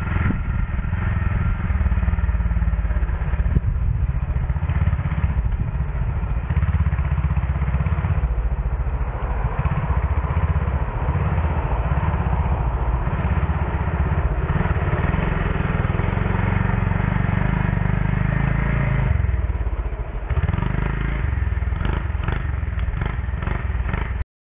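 Pitster Pro pit bike's single-cylinder four-stroke engine running as the bike is ridden, with a brief dip about twenty seconds in.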